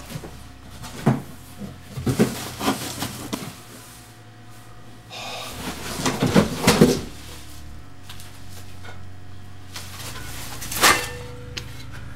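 A cardboard box being opened and unpacked by hand: scattered knocks, scrapes and rustles of cardboard, busiest a little past the middle, with one sharp knock near the end.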